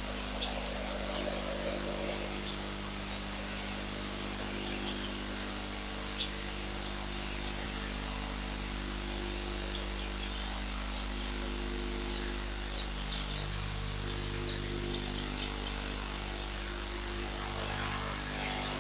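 Outdoor ambience with a steady low hum throughout, faint high chirps, and a few small clicks.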